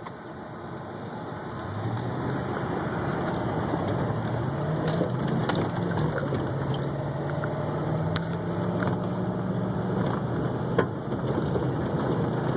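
2013 Ford Raptor's 6.2-litre V8 running at low speed off road, heard from inside the cab, its note settling in about two seconds in and rising slightly. Scattered knocks and rattles come from the truck over rough ground, with one sharper knock near the end.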